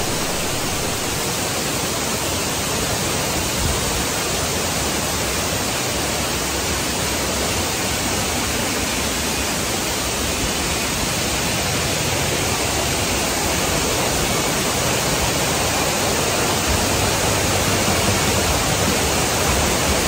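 Steady rush of falling and flowing water from a curtain waterfall and the fast, swollen river at its foot, getting slightly louder near the end.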